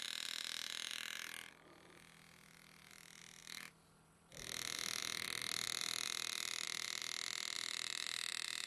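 Engraving graver buzzing steadily in rapid pulses as it cuts into the metal of a pocket watch case. It stops about a second and a half in and starts again about three seconds later.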